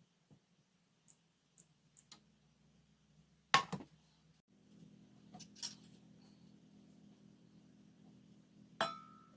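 Kitchen utensils and food containers being handled while a lunchbox is packed. A few light clicks come first, then a louder knock about three and a half seconds in. Near the end a sharp clink rings briefly. A low steady hum starts about halfway.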